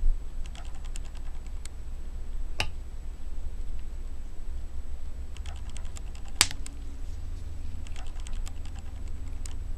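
Light, quick clicks and taps in short clusters, with two sharper knocks, as a wooden rod presses on a cylinder-head valve and the valve seats again. The valve has a newly replaced guide and no longer wobbles. A steady low hum runs underneath.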